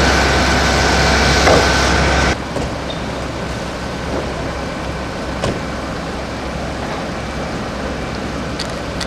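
Loud steady engine noise with a constant high whine that cuts off abruptly about two seconds in. After it, a quieter steady rumble with a few faint knocks.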